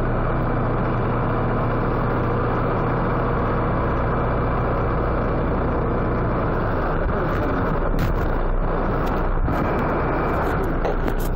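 A heavy vehicle's engine running steadily, mixed with blizzard wind noise. A low hum in it stops about two-thirds of the way in, and a few short knocks come near the end.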